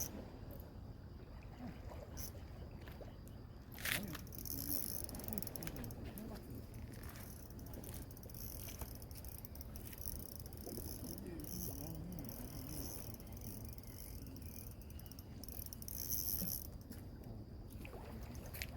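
Insects chirping in a dense, high-pitched trill over a steady low rumble of wind and water. A sharp click comes about four seconds in.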